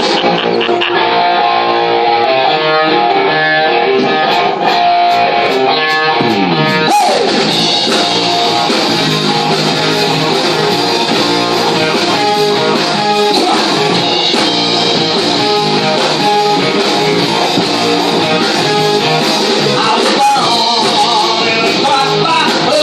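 Live rock band playing: an electric guitar riff at first, then about seven seconds in, after a guitar slide, the drums and full band come in.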